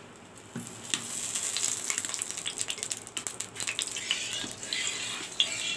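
Cooking oil sizzling and crackling with many small pops in a black iron kadhai over a wood fire as it heats. It starts about a second in.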